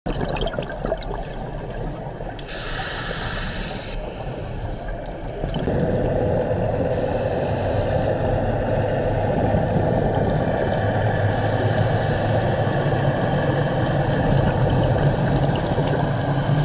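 Underwater scuba sounds: bursts of exhaled regulator bubbles every four to five seconds over a steady low drone of a boat engine. The drone grows louder about five seconds in.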